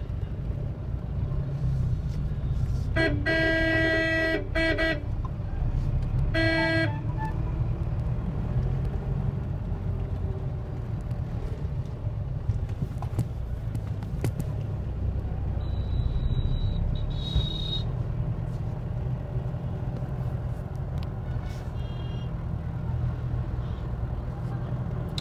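Steady low rumble of a car's engine and road noise, heard from inside the moving car, with a vehicle horn sounding: a long blast about three seconds in and a short toot a few seconds later.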